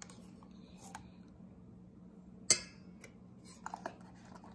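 A metal spoon scraping and knocking against a stainless steel mixing bowl while yogurt is spooned onto semolina. There is one sharp clink about two and a half seconds in and a couple of lighter clicks about a second later.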